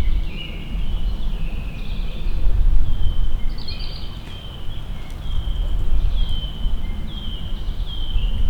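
A songbird singing a series of short, high whistled notes, one to two a second, each slurring slightly downward, over a steady low rumble.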